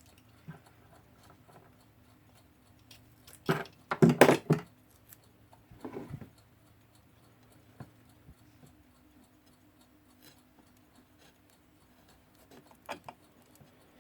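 Tape being handled and pressed on as the glass of a Jakob Palmtag alarm clock is secured at the sides: a cluster of short rustling, scraping sounds about four seconds in, a smaller one a couple of seconds later, and a few light taps near the end, over a faint steady hum.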